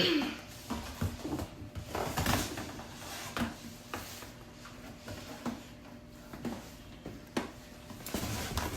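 Fabric rustling and a string of light knocks and clicks as a blazer is worn and handled, with louder rustling about two seconds in and again near the end.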